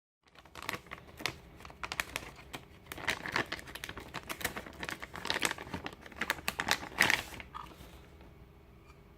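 Packaging crinkling and rustling in quick irregular crackles as a boxed electronic device is unwrapped by hand, dying down about seven and a half seconds in.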